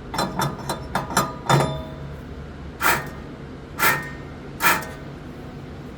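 A hammer striking metal with a ringing clang. A quick run of about seven lighter blows comes first, then three heavier, slower blows about a second apart.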